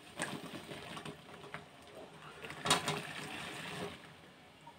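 Cooked ber (jujube) fruits tipped from a metal bowl into an aluminium wok of oil and spices, metal scraping and clattering on the rim as they slide in, with the loudest clatter about two and a half seconds in and a rustling shuffle of fruit and spoon until nearly the end.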